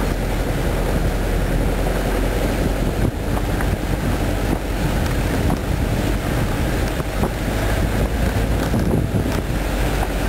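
Steady wind noise on the microphone over the running noise of a moving vehicle.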